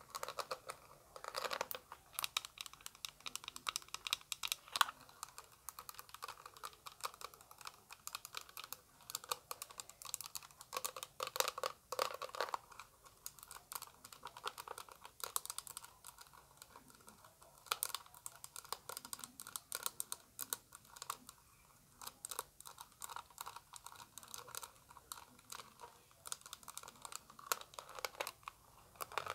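Fast tapping of long fingernails on a hard plastic eyeshadow palette case: a dense, uneven run of light plastic clicks.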